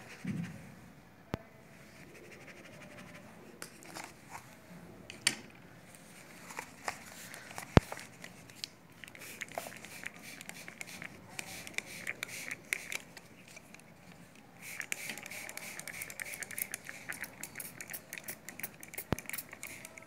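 Paintbrush scratching and dabbing on drawing paper, with scattered sharp clicks and one loud click about eight seconds in; in the last five seconds the scratching gets quicker and denser.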